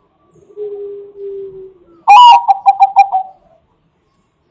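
Perkutut bangkok (zebra dove) singing: a soft, low, drawn-out coo, then a loud, higher run of quick repeated notes lasting about a second and a half.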